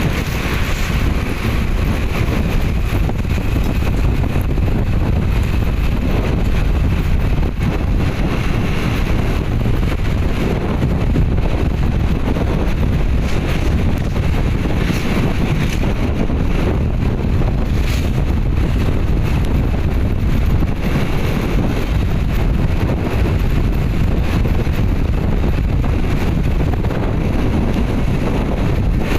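Wind buffeting the microphone over a steady low rumble, with no clear changes throughout.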